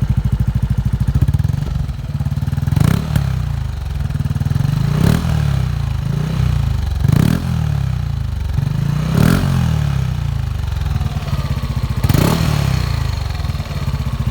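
Motorcycle engine breathing through an aftermarket WF power pipe exhaust, idling and then revved in five short throttle blips about two seconds apart, each rising and falling back to idle.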